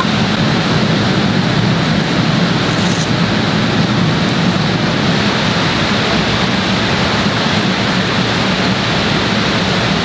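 Steady, loud factory-floor machinery noise: an even, unbroken rush with a low hum underneath and no distinct strikes or cycles.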